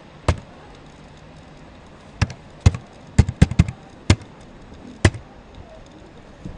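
Computer keyboard keys and a mouse button clicking as a cashier number and password are typed into a login box: about nine separate sharp clicks, with a quick run of four just past the middle.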